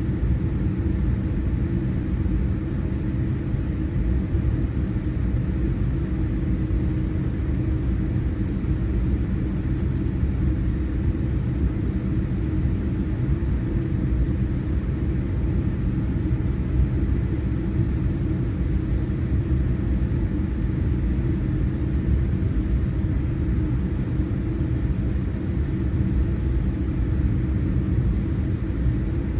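Steady low rumble heard inside the cabin of a Boeing 787-8 airliner on the ground shortly before takeoff, its engines running evenly with no rise in pitch or loudness.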